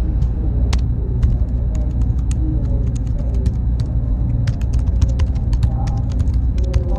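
Computer room ambience: a steady low machine rumble with a faint high whine, overlaid by frequent irregular clicks of keyboard typing.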